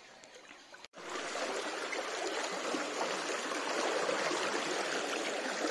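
Fast-flowing river floodwater rushing and churning around people wading waist-deep through it. The sound comes in abruptly about a second in and then stays steady.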